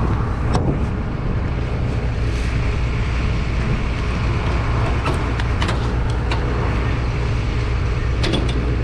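A vehicle engine running steadily, a low even drone, with a few light clicks.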